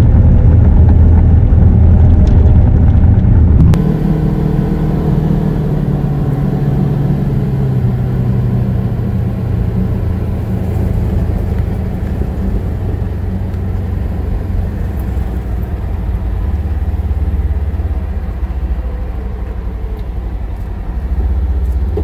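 A mini excavator's diesel engine running loudly, heard from inside its cab, cuts off suddenly about four seconds in. It is followed by a quieter, steady vehicle engine drone as a vehicle drives along.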